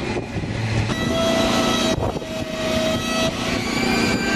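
Heavy tractor truck running as it hauls a load on flatbed trailers, a steady vehicle noise with a faint whine, broken by abrupt changes about one and two seconds in.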